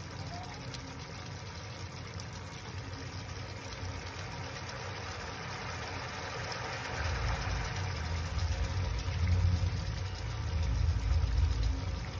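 Chicken curry simmering in a pan on a lit gas stove: a steady hiss and bubbling over the burner's low rumble, which grows louder about seven seconds in.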